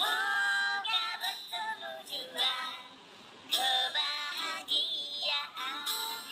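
Music with a high, strange-sounding singing voice in short held notes.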